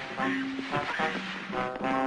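Background music: a brass instrument playing a tune of short held notes, changing about twice a second.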